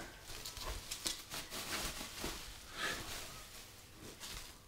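Bubble wrap and plastic packing rustling and crinkling in irregular bursts as hands rummage through a packed cardboard box.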